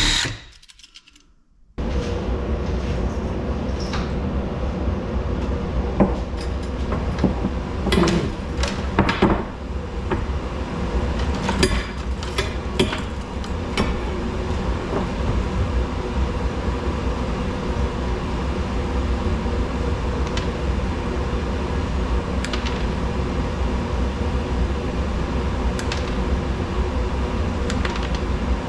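A steady mechanical hum with a low rumble starts abruptly about two seconds in and holds on, with a few scattered clicks and clanks of metal being handled in the first half.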